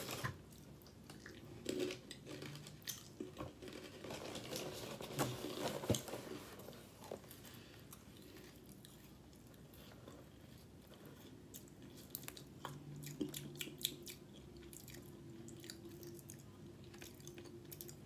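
A person chewing a mouthful of dry Funfetti cereal, the sprinkled corn puffs crunching in irregular bites. The crunching is loudest in the first few seconds and grows sparser and fainter later on.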